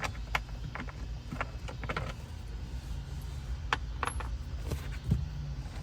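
Scattered sharp clicks and taps of hands working a plastic ignition switch and its trim loose in a pickup's dash, over a steady low hum.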